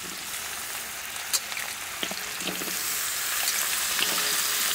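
Julienned carrots poured into a wok of frying garlic, sizzling in hot oil. The sizzle grows louder about halfway through, with a sharp click about a second in.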